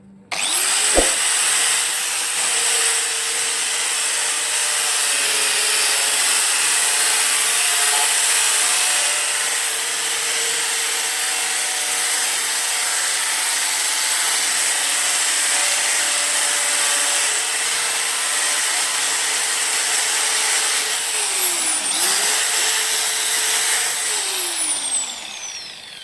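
Angle grinder switched on and spinning up to full speed with a high motor whine, running steadily for about twenty seconds. Its pitch dips and recovers briefly once, then it winds down with a falling whine near the end.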